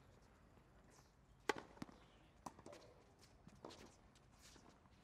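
Tennis rally on a hard court: a sharp racket-on-ball hit about a second and a half in, the loudest sound, among a few lighter knocks of the ball bouncing and the player's footsteps.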